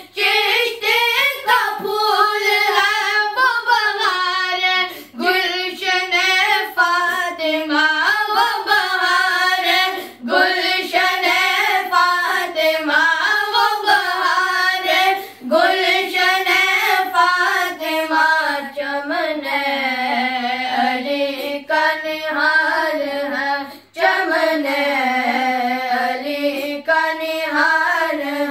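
A group of boys singing a manqabat (Urdu devotional song) together, unaccompanied, in one wavering melodic line with vibrato, breaking off briefly between phrases.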